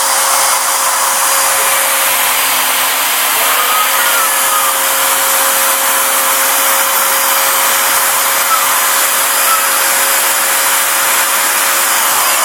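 CNC router spindle and dust-extraction vacuum running steadily: a continuous rushing hiss with a steady whine under it.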